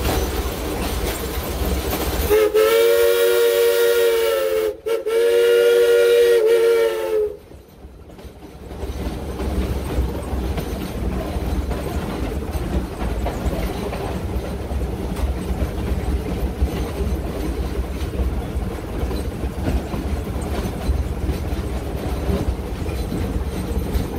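Steam locomotive whistle blown twice in quick succession, each blast a couple of seconds long and carrying several tones at once, heard from inside the cab. Around the blasts is the steady rumble and rail clatter of the locomotive running.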